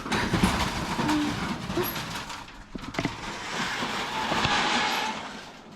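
Vehicle ride noise: a steady rushing with a few light knocks, swelling about four seconds in.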